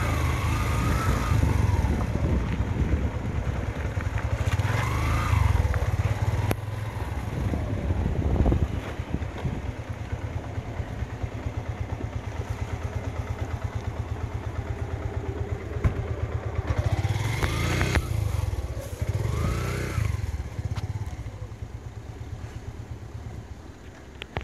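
Motorcycle engine running at low speed as the bike rolls along, with an even low firing beat that is clearest in the middle and grows quieter near the end.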